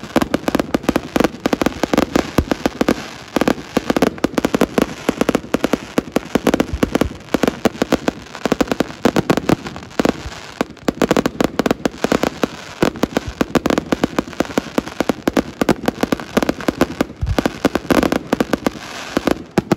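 Fireworks barrage: many aerial shells bursting at once, a dense, unbroken volley of bangs and crackling that does not let up.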